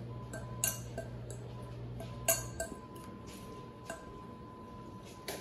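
A metal fork stirring a dry flour and brown sugar mix in a glass mixing bowl, with a few sharp clinks of the fork against the glass spread through the stirring.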